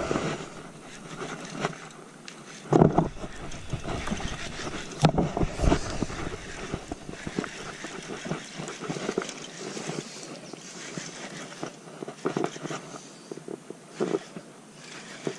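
A bass being fought and reeled to a fishing kayak with a baitcasting reel: a steady outdoor hiss of wind and water, broken by several sharp knocks and thumps, the loudest about 3 and 5 seconds in.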